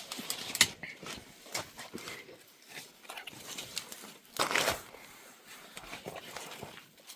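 Irregular rustling and crackling of dry leaves and twigs, with scattered sharp clicks and one louder rustle about four and a half seconds in.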